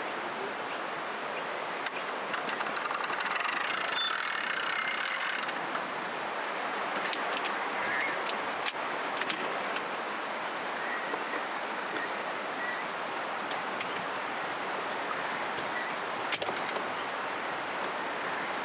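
Steady rush of flowing river water, with scattered light clicks and a louder hiss from about two to five seconds in.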